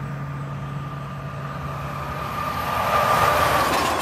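Road traffic: a steady vehicle drone, then a vehicle passing close by about three seconds in, its noise swelling and falling away.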